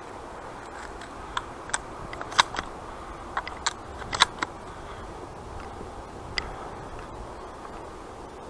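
Dry reed stems cracking and snapping as someone moves through a reed bed: about a dozen sharp clicks, bunched in the first half, over a steady hiss.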